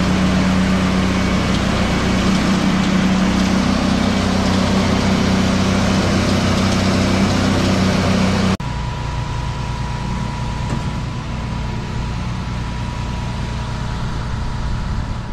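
A mechanical power trowel's engine runs loud and steady as it finishes fresh concrete. About two-thirds of the way through, the sound cuts to a quieter, steady engine drone with a thin whine, from a concrete pump truck pumping concrete through its boom.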